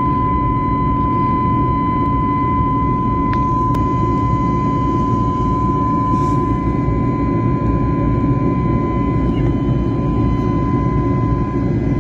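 Jet airliner cabin noise heard at the window beside the wing engine: the turbofan and rushing air give a steady roar, with a steady high whine over it.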